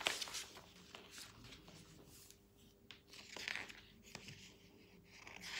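Faint rustling of paper as pages are leafed through, with a few soft clicks and a slightly louder rustle about three and a half seconds in, over a faint steady hum.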